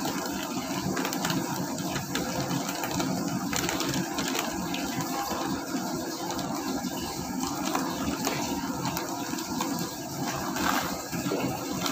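Steady rushing noise of commercial kitchen equipment, with faint rustling and tapping as flour is shaken from a plastic bag into a stainless steel bowl.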